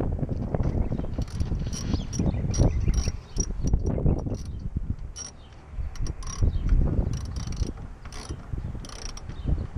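Hand ratchet clicking in short, irregular runs as a tonneau cover's bed-rail clamp is tightened, over a low wind rumble on the microphone.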